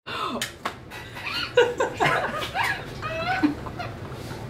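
Two women laughing together in irregular bursts.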